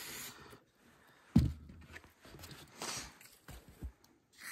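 A hiss of spray cuts off just after the start. It is followed by a sharp knock about a second and a half in and a few lighter taps and clicks as the corroded carburetor and its parts are handled during cleaning.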